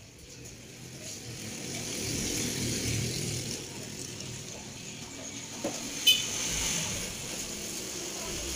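A motor vehicle passing, a low rumble that swells and fades with its peak about three seconds in. A sharp click comes about six seconds in.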